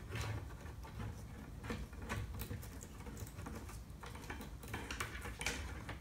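Hands handling a wiring harness and plastic printed parts: scattered light clicks, taps and rustles at an irregular pace.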